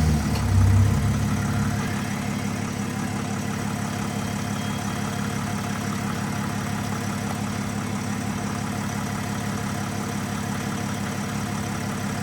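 Nissan V9X 3.0 V6 diesel engine just started: the revs flare briefly in the first second or so, then it settles to a steady idle. It runs without the rattle that the old crank pulley (harmonic balancer) made: "absolutely no noise" now that the new pulley is on.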